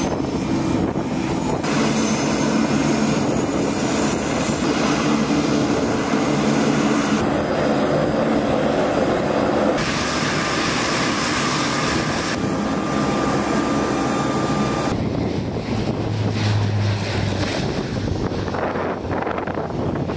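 Twin turboprop engines of a Coast Guard HC-27J Spartan running with propellers turning, then at takeoff power as the aircraft climbs away. The steady drone changes abruptly several times between shots.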